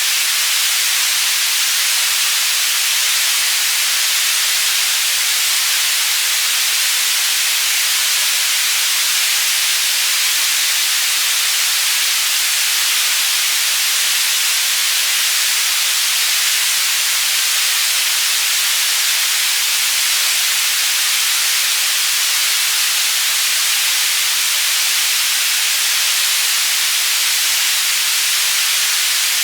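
Synthetic white noise for tinnitus masking, panned between left and right: a steady, even hiss, strongest in the high frequencies, with no change in overall loudness.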